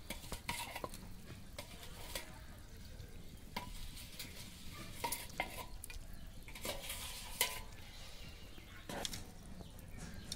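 A spatula scraping and clinking against a metal karahi as fish pieces in curry are stirred and turned, in irregular strokes with a few sharper knocks, over a frying sizzle.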